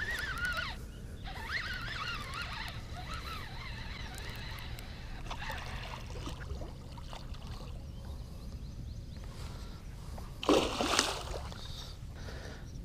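Hooked northern pike thrashing and splashing at the water's surface as it is reeled in beside the boat, with one loud splash about ten and a half seconds in.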